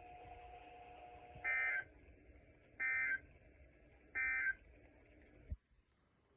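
NOAA Weather Radio receiver sounding the EAS/SAME end-of-message data bursts that close the Required Weekly Test: three short, harsh digital chirps about a second and a half apart. About five and a half seconds in, the receiver clicks and its audio mutes.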